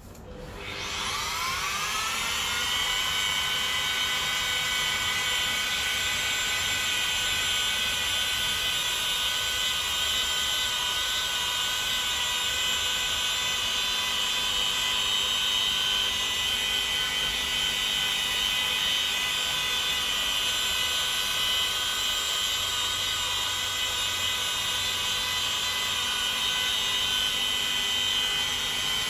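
Mini rotary polisher spinning up about a second in, then running steadily with a high whine as its small foam pad polishes car paint.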